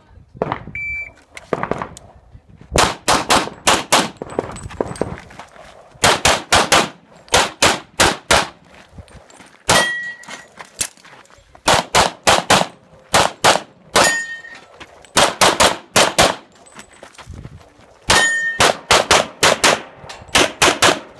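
A shot timer beeps once about a second in. Then a pistol fires rapidly in pairs and short strings, with brief pauses between strings. Steel targets give a ringing ping after a few of the shots.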